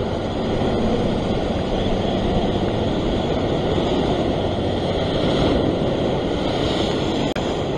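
Rough surf breaking and washing over a rock ledge, with wind buffeting the microphone: a steady, full rushing noise that cuts out for an instant near the end.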